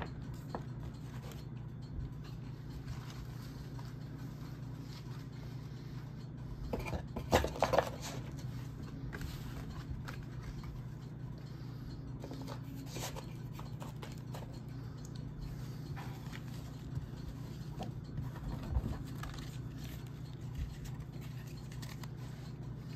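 Handling of trading card packaging: scattered rustles, scrapes and light taps, with a louder cluster of rustling about seven seconds in, over a steady low hum.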